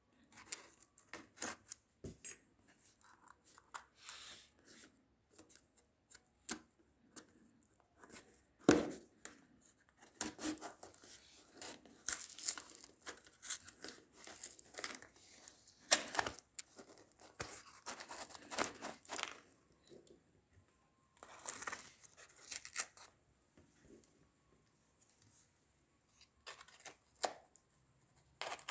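Cardboard shipping box being cut and torn open by hand. A small metal blade scrapes along the taped seams and cardboard and packing tape rip in irregular bursts, the loudest about a third of the way in and again about halfway.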